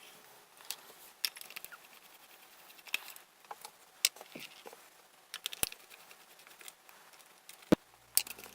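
Scattered light clicks and taps of the plastic RC toy buggy being handled and taken apart, irregular and sparse, one sharper knock near the end. Music starts just before the end.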